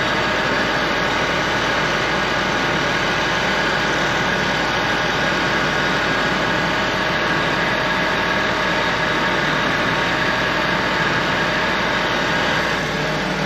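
A hearse's engine idling steadily with its newly replaced AC compressor running while the system is charged through the low-side manifold valve. The sound dips slightly near the end.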